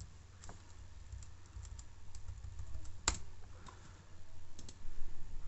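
Typing on a computer keyboard: irregular key clicks, with one louder click about three seconds in.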